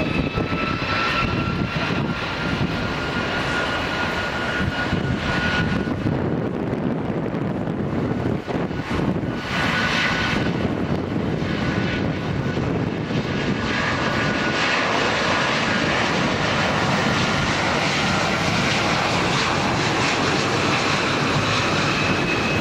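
Airbus A330-200 airliner's jet engines during its landing: a steady roar with a high turbine whine that rises slightly and fades in and out.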